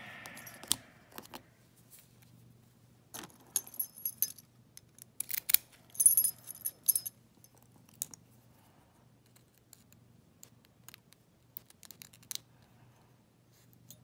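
A bunch of keys jangling on a ring, in two short bouts a few seconds in, amid small metal clicks and taps from handling a lock cylinder.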